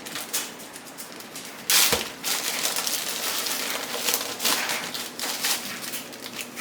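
Crinkling and crackling of a package as crispbread crackers are taken out of it, with a louder rustle about two seconds in.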